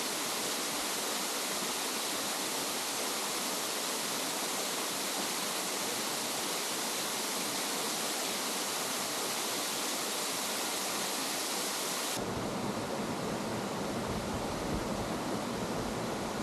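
Waterfall: a steady rush of falling water. About twelve seconds in the sound changes abruptly, turning duller as a low rumble comes in under it.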